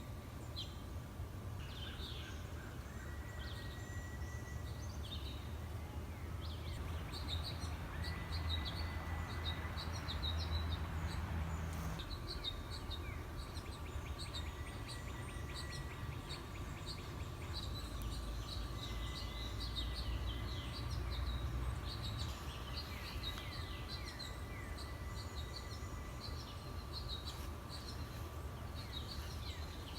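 A steady, even whistling tone runs throughout, joined now and then by a higher steady tone that starts and stops several times. Birds chirp over it, with a low rumble underneath.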